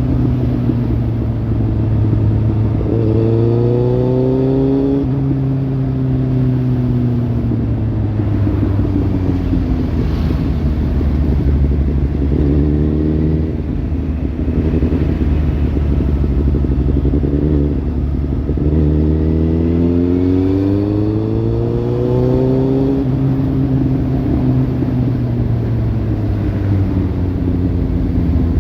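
Kawasaki Z800 inline-four engine through a Lextek slip-on exhaust, revving up and falling back several times: the pitch climbs about three seconds in, again around twelve seconds, and most strongly around twenty seconds, easing down slowly in between.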